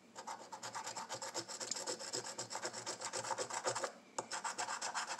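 Scratch-off lottery ticket being scraped with a round disc scratcher tool: rapid back-and-forth scraping strokes, several a second, taking off the coating, with a short pause about four seconds in.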